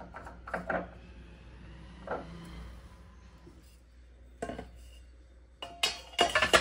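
Utensils clinking and clattering against a stainless steel utensil holder as ladles and spatulas are dropped into it: a few soft knocks early on, then a louder burst of clatter near the end.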